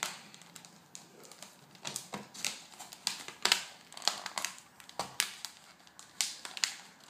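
Packaging being handled during an unboxing, crinkling and rustling in irregular sharp crackles, loudest about halfway through.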